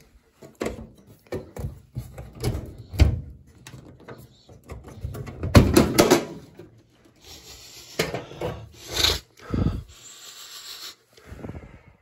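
Sheet-metal front access panel of a Carrier gas furnace being unlatched and lifted off: a series of knocks, clatters and scrapes, loudest about six seconds in, with rubbing between them.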